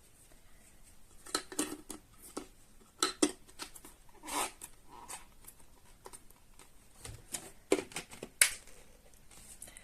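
Scattered short clicks and knocks of plastic parts being handled, with no motor running.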